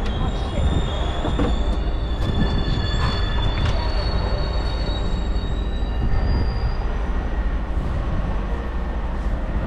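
Low, steady rumble of a moving vehicle, with several thin, high-pitched squealing tones over it that come and go for the first several seconds.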